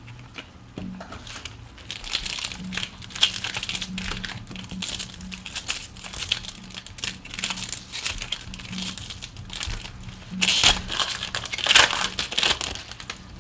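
Foil trading-card pack crinkling and tearing as it is opened by hand, in a run of irregular crackles that is loudest about ten to twelve seconds in.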